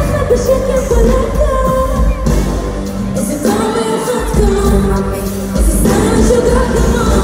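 Live pop performance over a concert PA: a female lead vocal sung over a loud amplified backing track with a heavy pulsing bass beat.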